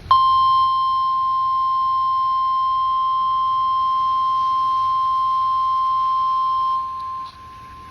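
NOAA Weather Radio warning alarm tone, a single steady high tone of about 1050 Hz. It starts abruptly, holds for about seven seconds and then cuts off, signalling that a severe thunderstorm warning follows.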